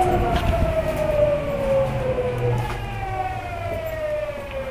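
Tokyu 9000 series GTO-VVVF inverter and traction motor whine heard from inside the carriage, over the low rumble of the wheels. The whine slides down in pitch, jumps back up about two-thirds of the way through and slides down again, the stepped falling whine of the train slowing.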